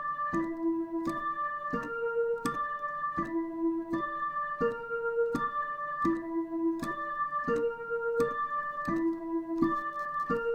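Dutch ambulance siren sounding continuously, an electronic tone stepping between notes about every 0.7 seconds in a repeating broken-chord pattern rather than a plain two-tone.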